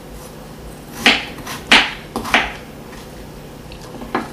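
A kitchen knife cutting a raw potato into cubes on a wooden cutting board, making a few sharp knocks as the blade meets the board.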